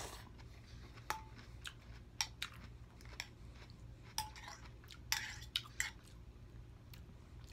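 Close-miked chewing of a mouthful of pho noodles, with a metal fork clinking and scraping against a glass bowl as noodles are stirred and lifted. The sounds come as scattered soft clicks and wet mouth sounds, busiest about five seconds in.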